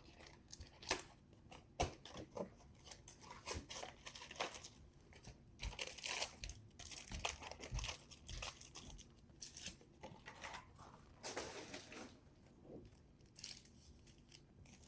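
Plastic wrapping on sealed trading card packaging being torn and crinkled by hand, in irregular crackles with scattered sharper clicks.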